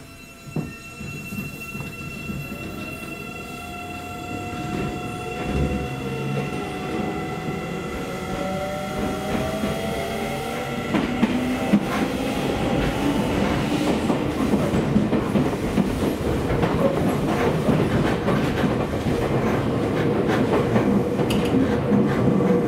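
Seibu 9000 series train's Hitachi IGBT-VVVF inverter and traction motors pulling away, heard from inside the car: a whine of several tones rising in pitch as the train accelerates. Wheel and rail noise grows steadily louder.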